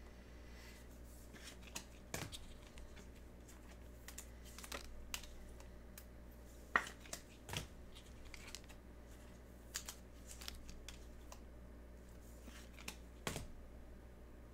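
Trading cards and card packs being handled: sporadic faint clicks, rustles and a few sharper snaps.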